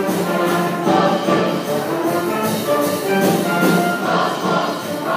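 A show choir singing a full-voiced number in harmony, with instrumental accompaniment and a steady beat.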